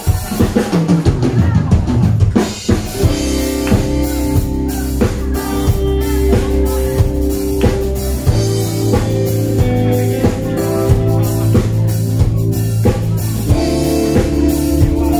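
Live band playing a song's instrumental intro on drum kit, electric guitar and keyboard: busy drumming for the first couple of seconds, then sustained chords over a steady beat, with a change of chord near the end.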